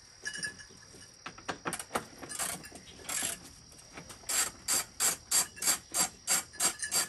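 Hand ratchet with a size 4 Allen bit being swung back and forth to back out a motorcycle fairing bolt: a few scattered ratchet clicks at first, then from about four seconds in a steady run of short ratcheting bursts, about three a second.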